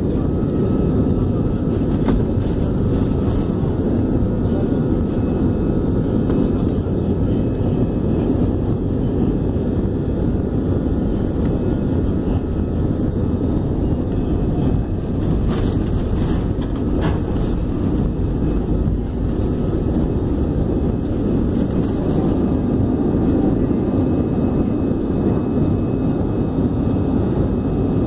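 Airliner's jet engines at takeoff thrust, heard from inside the cabin over the wing: a steady, loud, deep noise as the plane speeds down the runway and lifts off in the second half.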